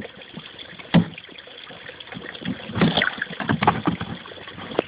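Pond fish splashing at the water's surface, in irregular bursts: one sharp splash about a second in and a flurry of splashes around the middle.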